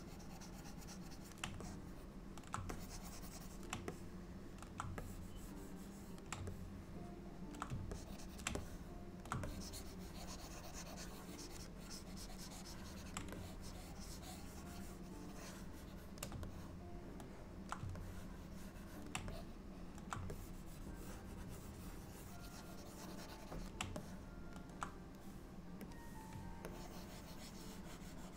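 Pen stylus scratching across a graphics tablet, with irregular sharp clicks scattered throughout, over a faint steady hum.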